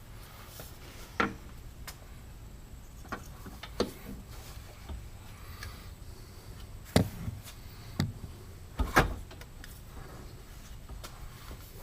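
Scattered sharp knocks and clanks of hands and tools working on a UTV exhaust, about five single knocks a second or more apart over a low steady hum.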